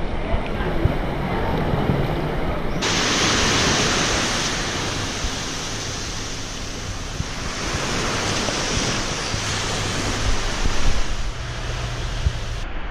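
Sea waves washing and surging, with wind noise on the microphone. The steady hiss changes abruptly about three seconds in.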